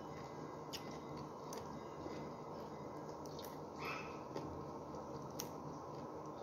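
Faint clicks and small squishy snaps from a raw broccoli stalk being peeled and stripped of its leaves by hand, with a brief higher sound about four seconds in, over a steady room hum.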